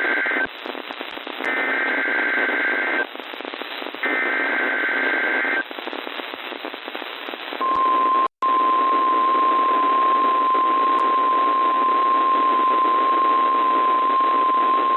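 NOAA Weather Radio emergency alert test received over radio hiss: the end of one burst of SAME digital header data tones and then two more full bursts, each about a second and a half long. About two seconds later the 1050 Hz warning alarm tone starts, a single steady high tone that cuts out for an instant just after it begins and then holds.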